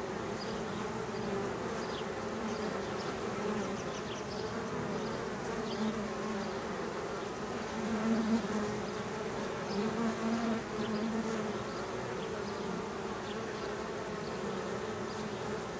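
Honeybees buzzing steadily around a hive as a newly installed package colony settles in, swelling louder twice near the middle as bees fly close by.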